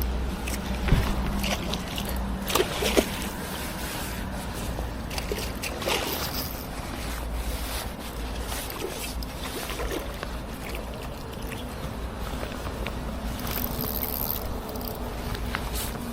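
Water sloshing and splashing over a steady low rumble, with a few sharp knocks in the first several seconds.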